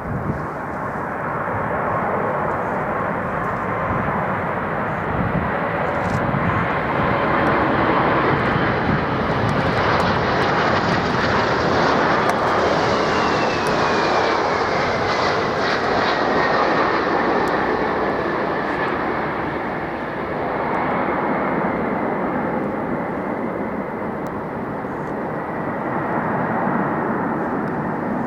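Jet airliner passing low on final approach to land, its engine noise swelling to a peak about halfway through and then easing off, with a high whine that falls in pitch as it goes by.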